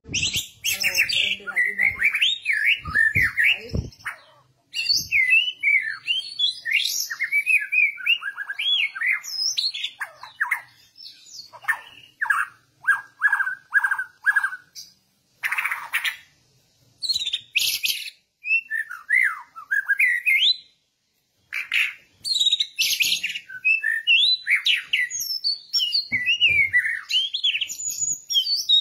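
White-rumped shama singing a long, varied song of whistles, glides and sharp notes, with a run of about half a dozen repeated level whistles midway and a few brief pauses. A few low knocks sound in the first four seconds.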